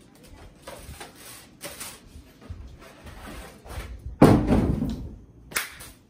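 A fan being unpacked from its cardboard box: rustling and light knocks of cardboard and plastic parts being handled, with one loud thud about four seconds in that fades over about a second, and two short knocks near the end.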